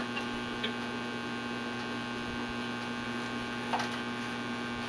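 Old tube radio, a 1930 General Electric T-12, putting out a steady low mains hum with hiss and three faint crackles while tuned between stations.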